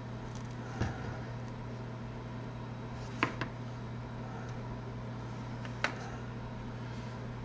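A few sharp clicks and taps from cutting small pieces off a rod-tip glue stick with a razor blade and setting them down on the bench, the loudest about three seconds in and again near six seconds, over a steady low hum.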